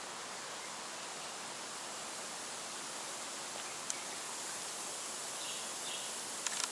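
Steady, even hiss of outdoor background noise, with a short click about four seconds in and a few sharp clicks near the end.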